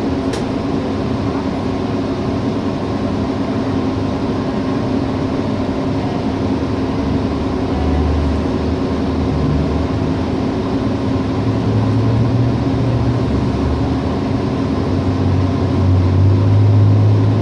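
Steady engine drone and road noise heard from inside a moving city bus. The low engine note swells about eight seconds in and again over the last few seconds.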